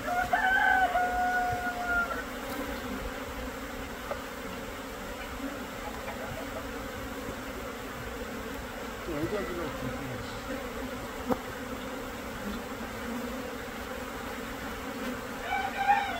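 Steady buzzing of a large swarm of Korean native honeybees (Asian honeybees) pouring out of the hive entrance as the colony swarms. A rooster crows in the first two seconds, and a shorter pitched call comes near the end.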